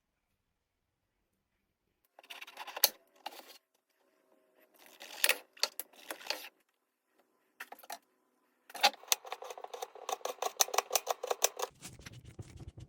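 Knife cutting on a cutting board: a few scattered cuts and scrapes, then a run of quick, regular chops, about five or six a second. Near the end a low, steady rushing noise begins.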